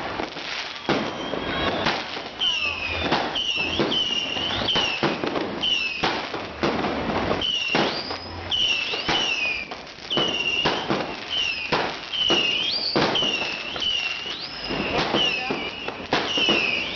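Fireworks going off in quick succession: a dense string of sharp bangs and crackles, with a short high whistle repeating about once a second over them.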